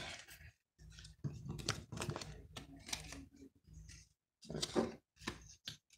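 Handling noise close to the microphone: a run of short, irregular rustles, scrapes and soft knocks as objects are moved about by hand.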